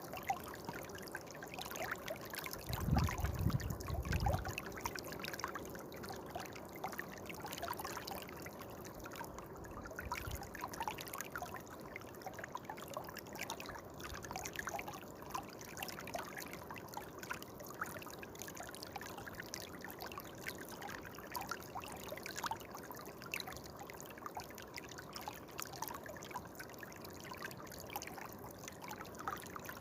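A stream of water trickling and splashing: a steady wash of running water with many small splashes. A low rumble comes in about three seconds in and lasts a second or two.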